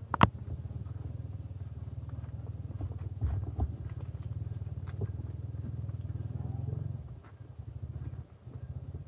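A low engine running steadily with an even pulsing beat, dropping away about seven seconds in; a single sharp click sounds just after the start.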